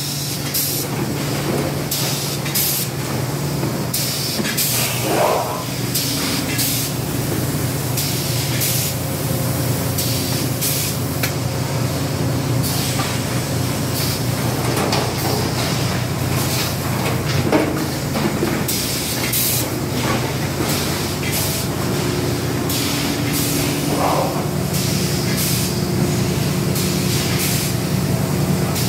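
Plastic blow-molding production line running: a steady machine hum with many short hisses of compressed air from the blowing and pneumatic handling.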